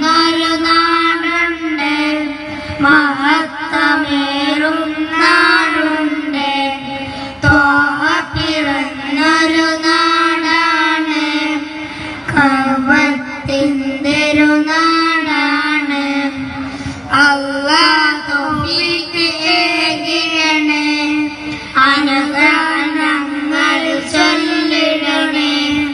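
Three boys singing a Malayalam Nabidinam madh song together into microphones, the melody held in long, wavering, ornamented lines with short breaths between phrases.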